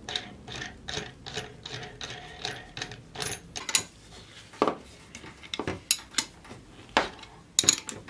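Ratchet clicking steadily as a nut is run down a bolt, about three clicks a second. After about three seconds come a few louder separate metal clinks and knocks as a wrench works the nut on the other side.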